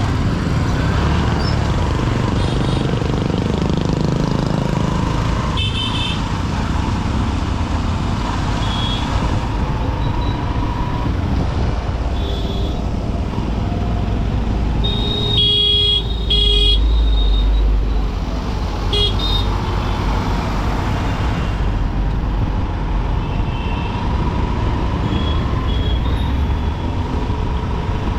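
Dense city traffic heard from a moving commuter motorcycle: a steady rumble of engines and road noise, with other vehicles' horns honking again and again. The longest and loudest honk comes about halfway through, along with a surge of deep rumble.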